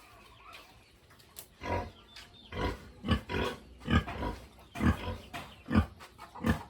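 Pig grunts: after a quiet first second and a half, a run of short, loud grunts comes about one every half second to second.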